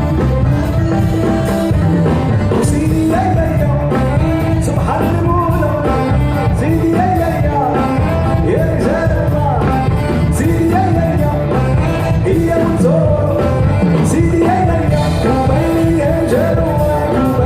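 Music with a singing voice, loud and steady, played through an outdoor PA system during its sound check.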